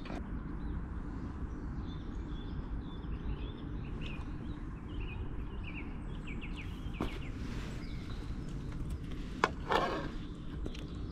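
Outdoor background: a steady low rumble with small birds chirping over it. About nine and a half seconds in comes a sharp click, then a brief louder rush.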